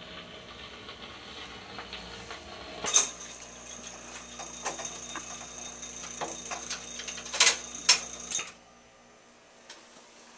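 Wurlitzer 1400 jukebox's Simplex record-changing mechanism cycling after a 45 has played: a motor running with small clicks and rattles, a sharp clank about three seconds in, then three loud clanks in quick succession as the record is lifted off the turntable and returned to the stack, after which the running sound stops abruptly.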